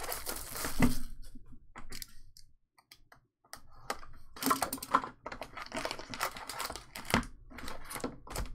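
Plastic shrink wrap crinkling as it is peeled off a cardboard hobby box of trading cards, then foil card packs rustling and clicking as they are pulled from the box. The handling comes as irregular small crackles and clicks, with a short pause about three seconds in.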